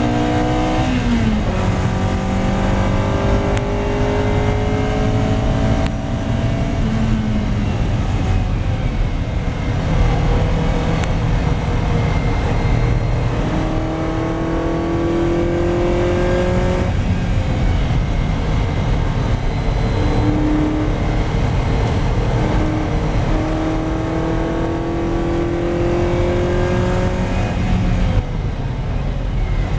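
Ferrari 308 GTB's mid-mounted 2.9-litre V8 under hard acceleration on track, heard from inside the cabin. Its pitch climbs again and again, dropping sharply at a gear change about a second in, and falls away near the end as the driver lifts off to brake.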